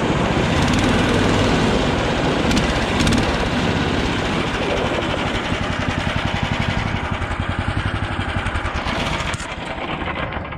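Snowdog tracked snow machine's small engine running as it is driven, with a rapid even firing pulse, growing quieter near the end.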